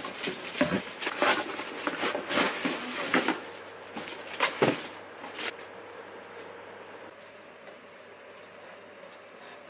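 Rustling of paper and plastic wrapping and knocks of lamp parts against a cardboard box as a floor lamp is unpacked. The handling is irregular, with sharp clicks and rustles, and it dies down after about five and a half seconds, leaving quiet room tone.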